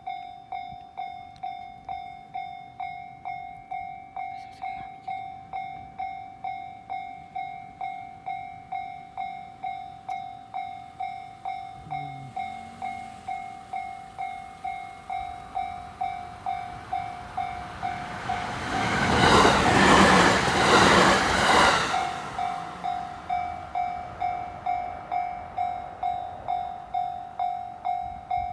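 Japanese level crossing warning bell ringing about twice a second throughout. A three-car JR West 227 series 'Urara' electric train passes over the crossing, its wheel and running noise swelling loud for about three seconds some two-thirds of the way through before fading, while the bell keeps ringing.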